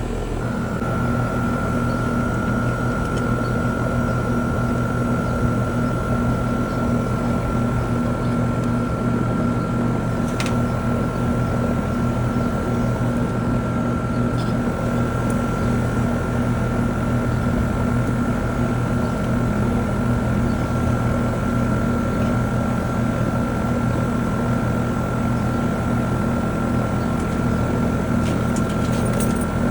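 American Standard central air conditioner's outdoor condensing unit running: a steady hum from the compressor and the newly replaced condenser fan, with a steady high whine that starts about half a second in. The system is running low on R-410A refrigerant because of a small leak.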